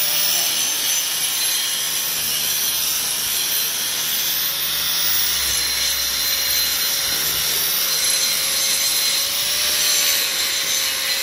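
Small corded handheld grinder running steadily as it cuts engraved lines into a concrete slab: a continuous grinding hiss over a motor whine that wavers slightly in pitch.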